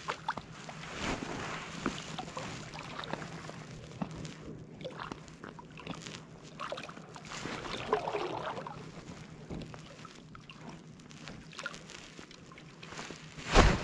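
Small-water lapping and sloshing against a float tube as it moves across a reservoir, an irregular run of little splashes and trickles, with a louder bump near the end.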